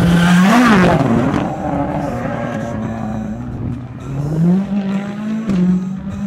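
Turbocharged rallycross race car engine revving hard, its pitch dipping about a second in and climbing again around four seconds in, over tyre and gravel noise.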